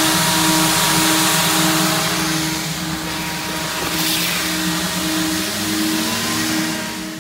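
Automatic car wash air-dryer blowers running: a loud, steady rush of air over a motor hum, with a tone pulsing about twice a second. It cuts off suddenly at the very end.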